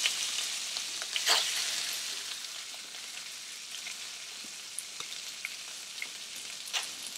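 Shrimp sizzling in hot coconut oil in a wok. The hiss starts loud and dies down steadily over several seconds, with scattered pops and crackles.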